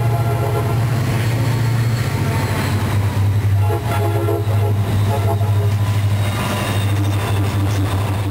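Diesel freight train passing close by: the locomotive engines run with a steady low rumble, and held horn tones sound through the middle of the passage.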